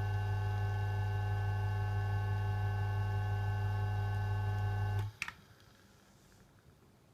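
Seibu Denko (Toshiba) IF-254TU pressure ventilation fan running with a steady electrical motor hum and overtones. The hum cuts off suddenly about five seconds in, and a click follows just after.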